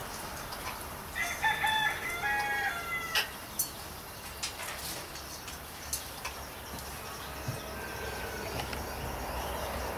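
A rooster crowing once, a crow of several level-pitched syllables starting about a second in and lasting about two seconds, followed by a few sharp clicks.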